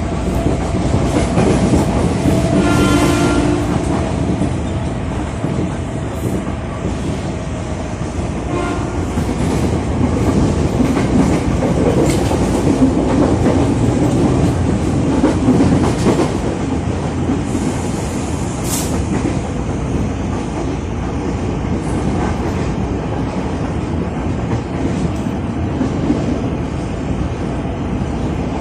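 KRL commuter electric multiple unit running, heard from inside the second car, with a steady rumble and wheel clatter over the rail joints. The horn on the lead car sounds for about a second about three seconds in, and again more faintly about nine seconds in.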